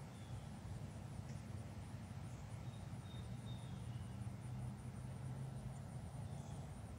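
Faint outdoor ambience: a steady low rumble like distant traffic, a fast, evenly pulsing high insect trill, and a few faint short bird chirps.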